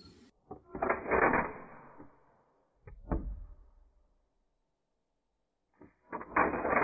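Mossberg 500 pump-action .410 shotgun being racked by hand: a rattling slide stroke about a second in, two sharp metallic clicks around three seconds in, and another slide stroke near the end.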